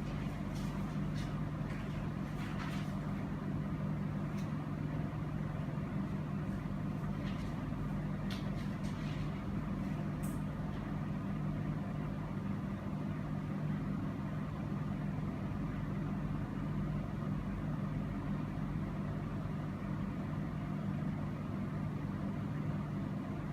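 A steady low hum with an even background hiss, and a few faint clicks in the first ten seconds or so.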